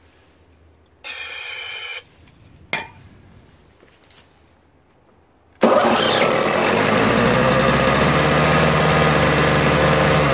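A short spray hiss of carb cleaner and a click, then about five and a half seconds in the Toro snowblower's Tecumseh two-stroke engine catches on the electric starter and runs loud and steady. It runs only on the carb cleaner sprayed into it: the carburettor's jet is plugged and no fuel gets through from the bowl.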